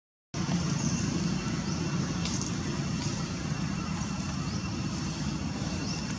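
Steady outdoor background noise, a low rumble like distant road traffic, with a few faint high chirps over it. It cuts in after a brief moment of silence at the very start.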